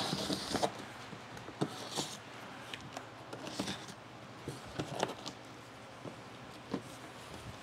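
A blade slitting the packing tape along a cardboard box seam with a quick scraping hiss, then more tape and cardboard scraping as the box flaps are pulled open, with scattered light knocks and taps of cardboard and handling.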